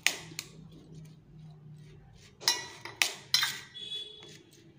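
Metal spoon stirring sweet corn kernels in a stainless steel bowl, clinking against the steel several times, with a cluster of sharper clinks around the middle.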